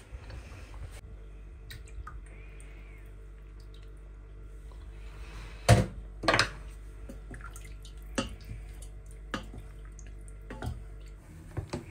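Electric blender running in a pot of vegetable soup: a steady low motor hum with liquid sloshing and a few sharp knocks, switching off near the end.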